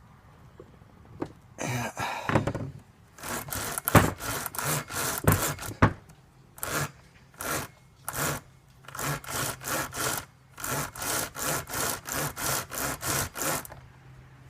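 Steel file rasping across chainsaw chain teeth in repeated short strokes, about two a second.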